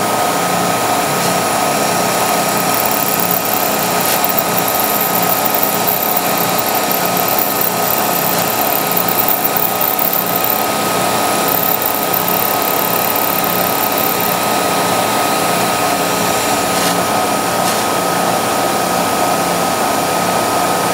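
Milling machine running a 3/16-inch end mill on a slotting pass into a steel Sako rifle bolt, cutting the extractor slot 30 thousandths deeper: a steady machine whine with one constant tone.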